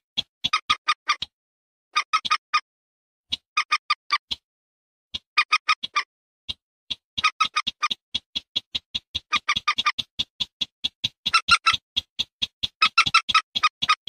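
Rail bird-lure recording mixing common moorhen and barred rail calls. It plays as bouts of rapid, evenly spaced sharp call notes, several a second, broken by short pauses. The bouts run almost without a break in the second half.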